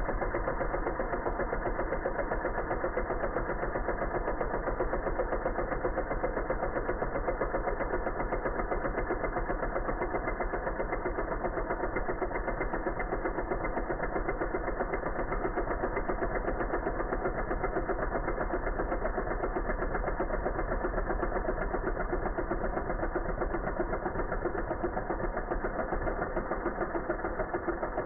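Milwaukee cordless impact driver hammering steadily as it bores a hole into a wooden block: a continuous, very rapid rattle of impacts.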